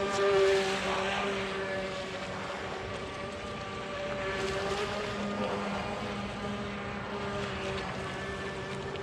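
Proboat StealthWake 23-inch deep-V RC boat's brushed electric motor whining steadily at speed on a 2S LiPo, with the rushing hiss of spray as the hull cuts through the water. It is loudest about half a second in, and the spray swells again twice as the boat carves turns.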